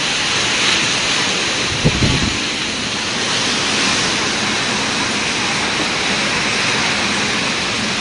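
Typhoon wind and heavy rain: a loud, steady rush of noise, with a brief low thump about two seconds in.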